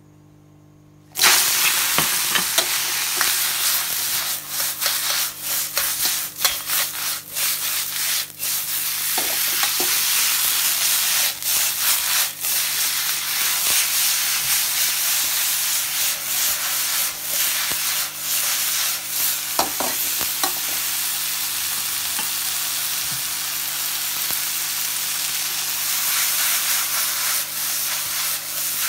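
Morning glory and its sauce tipped all at once into smoking-hot oil in a metal wok, starting a loud, steady sizzle about a second in after a faint hum. The frying carries on while a ladle stirs, knocking and scraping against the wok.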